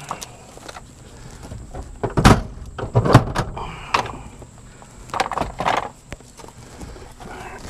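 Several clunks and knocks of metal parts as a steering column is lowered out from under a dashboard. The two loudest come a little over two seconds in and about three seconds in, followed by a few lighter knocks and scrapes.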